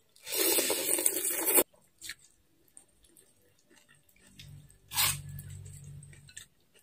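Noodles slurped into the mouth, loud for about a second and a half and then cut off suddenly, followed by quiet chewing with a few small clicks. About five seconds in comes a second, shorter slurp over a low hum.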